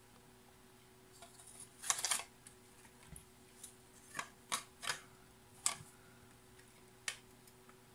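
Light handling noises from small parts of an opened portable radio-speaker: a short cluster of rustling clicks about two seconds in, then several single light clicks and taps, over a faint steady hum.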